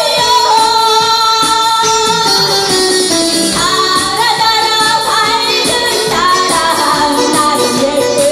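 A woman singing a nostalgic Korean popular song into a microphone, holding and bending long notes over instrumental accompaniment with a steady beat.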